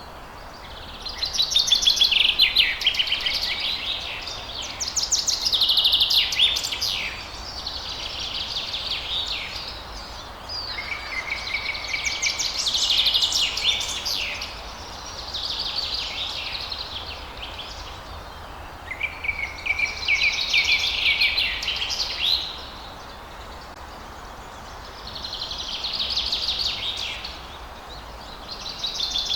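Songbirds singing: phrases of quick trills and chirps a few seconds long, coming again every few seconds, over a steady background hiss.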